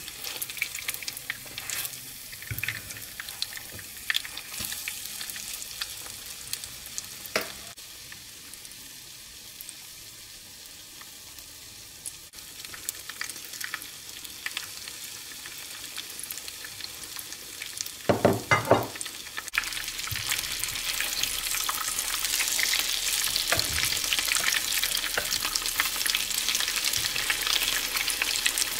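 Hot oil sizzling and crackling around battered onion rings frying in a pan. The sizzle grows louder and fuller about two-thirds of the way through as more batter goes into the oil, with a few sharp knocks just before.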